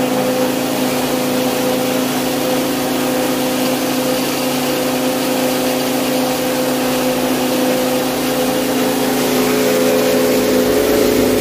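Mini rice mill machine running steadily, its motor giving a constant hum under an even rushing noise as milled rice streams out of the discharge chute.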